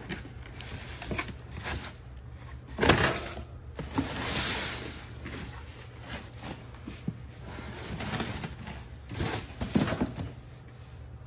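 Cardboard boxes being handled: rustling and scraping of cardboard as smaller boxes are pulled out of a shipping carton and set down on a steel table, with a sharp knock about three seconds in and a cluster of bumps near the end.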